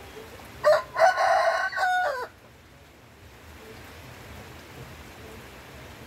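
A rooster crows once, loud over steady rain: a short first note, then a longer held call of under two seconds that drops off at the end.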